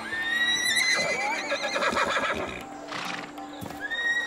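Horses whinnying: one long, high call that rises, wavers and holds, and a second starting near the end, over scattered hoof knocks.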